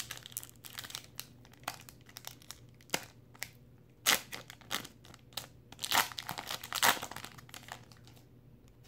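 Wrapper of a hockey card pack crinkling and tearing as it is pulled open by hand, in irregular crackles with a few louder rips about four, six and seven seconds in.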